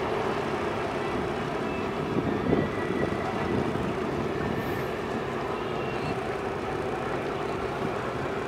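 Ship's engines running: a steady low rumble, with a brief cluster of louder knocks about two and a half seconds in.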